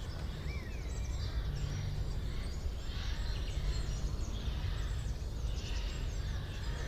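A chorus of several birds chirping and trilling at once in a forest, over a steady low rumble.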